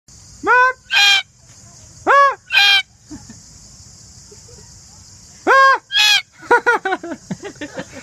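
Red-tailed black cockatoo calling: a two-note call given three times, each pair lasting under a second, with the first note arching up and down and the second higher. Near the end comes a quick run of short, falling chattering notes.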